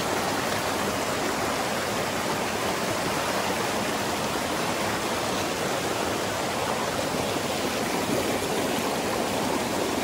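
River water rushing steadily, an even wash of noise that holds level throughout.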